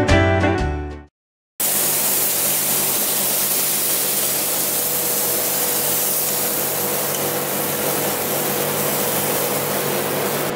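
Background music fades out within the first second. After a brief silence comes a steady hiss: waffle batter sizzling as it is poured onto the hot plate of an electric waffle maker.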